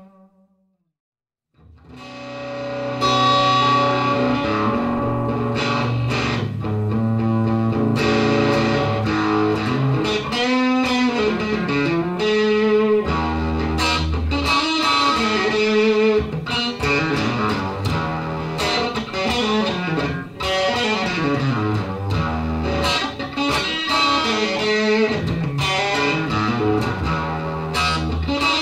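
Suhr Modern Satin electric guitar played through an amp. The playing fades back in after a brief silence at the start, then runs on with held notes shaken with vibrato and fast runs up and down the neck.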